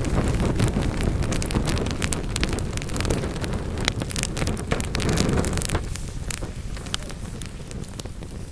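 Wood fire burning in a fireplace, with dense crackles and sharp pops over a low rushing sound. The rushing eases off about six seconds in.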